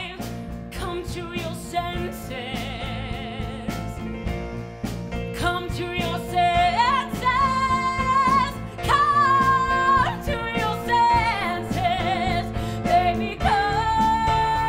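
A woman singing a show tune in full voice, backed by a live band of drums, bass and electric guitar. She holds several long notes with vibrato, the last beginning near the end.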